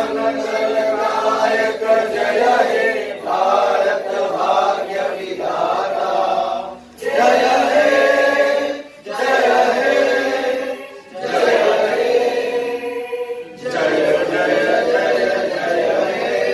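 A group of men singing together in unison, in short phrases separated by brief pauses.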